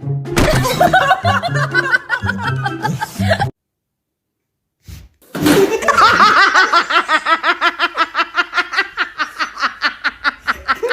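Background music with laughter over it, cut off suddenly about three and a half seconds in; after a short silence, a long run of fast, even laughter, about seven beats a second, which is the loudest part.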